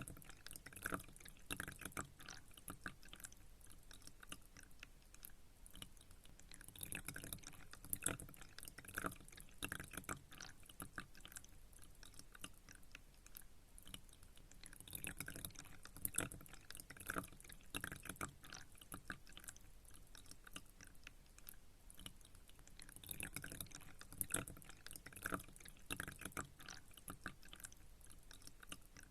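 Pond water dripping and trickling in many small irregular drops, with busier spells about every eight seconds.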